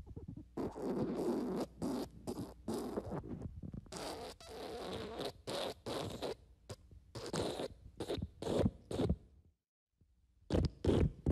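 Fart sound effect: a long sputtering run of short, rapid bursts that thin out into separate puffs and stop. After a short silence another fart sound starts near the end.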